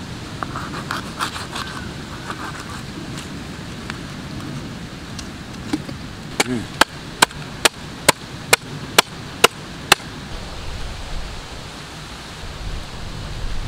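Knife cutting into a stingray's flesh and cartilage, with a run of about nine sharp knocks, a little over two a second, for a few seconds in the middle.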